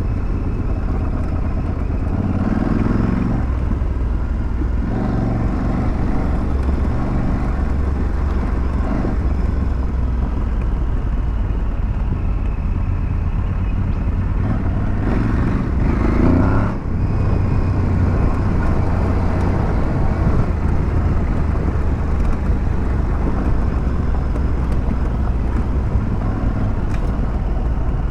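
Aprilia Tuareg 660's parallel-twin engine running under way, its note swelling with the throttle a few seconds in and again around 15 seconds, with a brief sharp drop about 17 seconds in.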